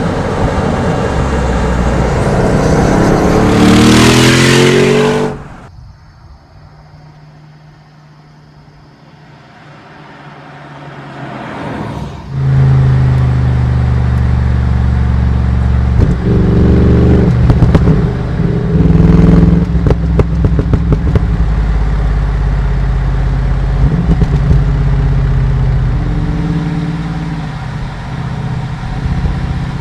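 The 4.0-litre twin-turbo V8 exhaust of a 2015 Bentley Continental GT3-R: a loud run rising in pitch for about five seconds that cuts off suddenly, a few quieter seconds with the sound building again, then from about twelve seconds in the engine running loud and low with several short rises in revs.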